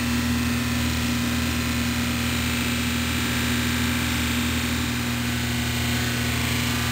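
Electric bench buffer running with a steady hum while its spinning buffing wheel polishes a Norwalk juicer's metal feed tube held against it, with an even hiss over the hum.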